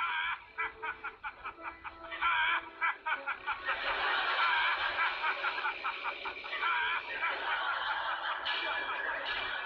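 People laughing hard: the laughter breaks out suddenly in quick pulses and swells into a dense, continuous wash of laughter after a few seconds.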